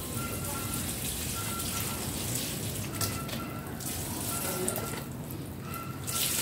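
Water pouring from two hand-held plastic watering cans onto potted plants, splashing on leaves and soil, with two short breaks in the flow.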